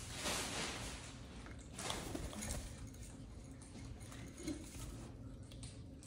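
Faint, scattered rustling and crunching of a blue-and-gold macaw foraging in a seed cup, with a few small scrapes and shuffles of the birds on the wooden perch.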